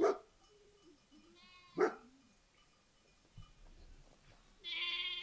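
Goats bleating, with one long wavering bleat near the end, and a dog barking twice: once at the start and again about two seconds in. The two barks are the loudest sounds.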